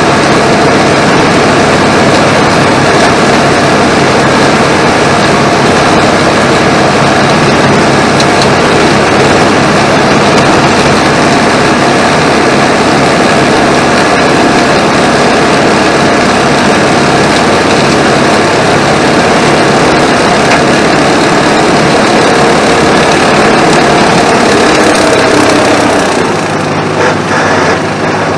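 Tractor engine running hard, driving a hydraulic boom mower that is cutting roadside grass: a loud, steady mechanical din. Near the end the sound drops and thins to a lower steady hum as the mower head is lifted out of the grass.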